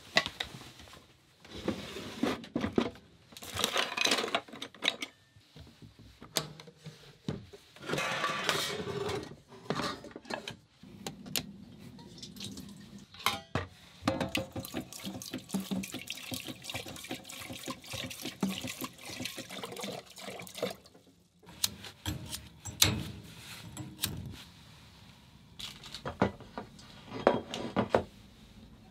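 Water from a hand-pumped galley faucet splashing into a stainless steel sink and pots, in spells of a second or so, with clanks and knocks of pots, pans and cans being handled.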